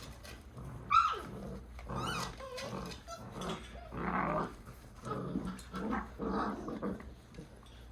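Welsh Springer Spaniel puppies growling in rough play, a run of short growls about once a second, with a sharp high yip about a second in.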